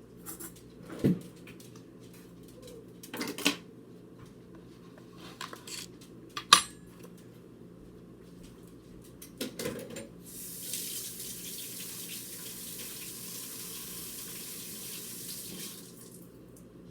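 Dishes and utensils clattering a few times, then a kitchen tap running into the sink for about five seconds.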